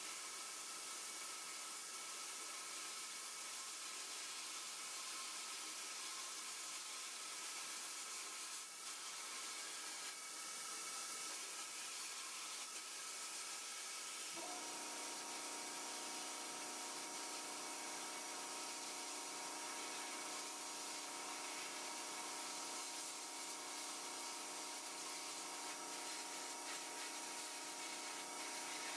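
Blast-cabinet gun running continuously, a steady hiss of compressed air and abrasive media stripping old red paint and rust from a pressed-steel toy body. About halfway through, a steadier tone joins the hiss.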